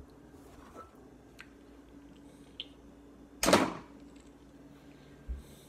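A kitchen cabinet being shut with one short thud about three and a half seconds in, over a faint steady hum and a few small handling ticks.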